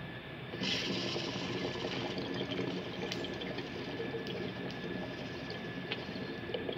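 A Calibear glass bong bubbling steadily as smoke is drawn through the water, starting about half a second in.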